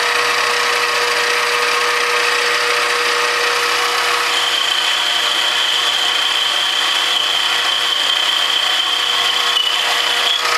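Micromark 7x14 mini lathe running steadily while a boring bar takes a light 15-thou cut in aluminum. A high steady whine joins about four seconds in and stops just before the end.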